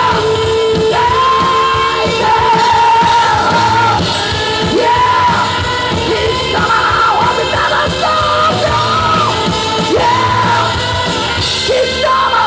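Live rock band playing loudly, with long held notes sung at a shout over the band.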